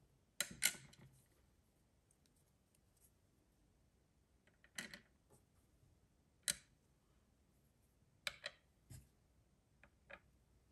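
Tiny plastic miniature pieces set down on a small plastic tabletop: light, sharp clicks and taps, a pair about half a second in, then single ones every second or two, with near silence between.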